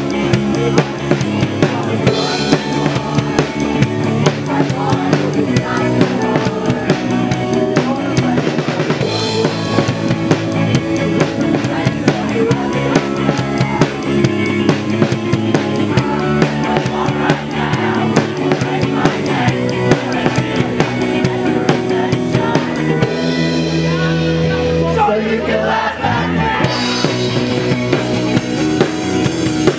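Live rock band playing loudly: drum kit with bass drum and snare driving the beat under electric guitar. A few seconds before the end the cymbals drop out briefly, then the full band comes back in.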